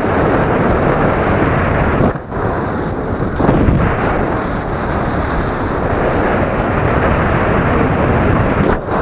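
Wind rushing and buffeting over the microphone of a tandem paraglider in flight: a loud, steady roar of air that briefly drops about two seconds in and again near the end.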